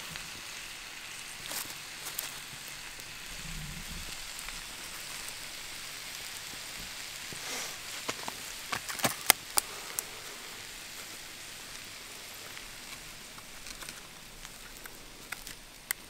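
Sliced vegetables frying in a skillet over a campfire: a steady sizzle, with a few sharp clicks and taps about eight to ten seconds in.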